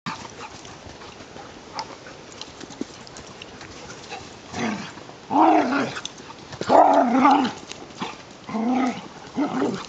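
Two dogs play-fighting. Scuffling is faint at first, then from about halfway they make several short bouts of growling and barking.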